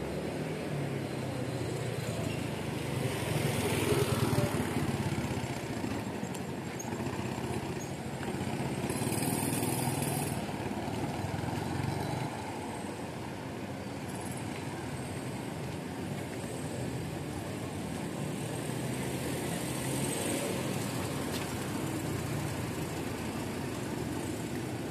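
Slow street traffic: car engines and a motorcycle running at low speed, making a steady low hum that swells louder about four seconds in. A short high hiss comes about nine seconds in.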